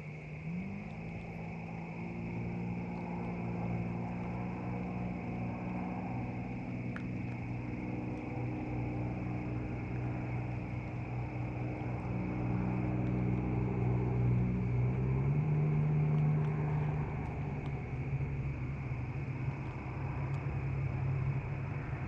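An engine running steadily, its pitch stepping up about half a second in and shifting again about fifteen seconds in, growing slowly louder.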